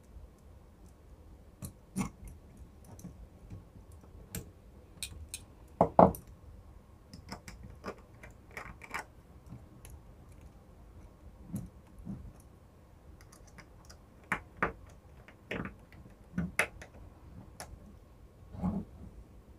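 Irregular clicks and taps of a small screwdriver working the screw terminals of a plastic two-way light switch while wires are fitted into it, with the loudest knock about six seconds in.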